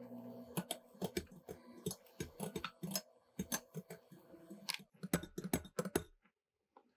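Metal beaters of an electric hand mixer clicking and knocking against the side of a glass bowl while whipping egg whites into meringue: a rapid, irregular run of clicks that stops about six seconds in.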